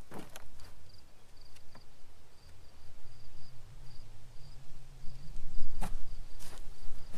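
Hands digging and sifting through loose potting soil in a plastic tub, with a few short knocks and rustles, the loudest near the end. A cricket chirps steadily in the background, about two chirps a second.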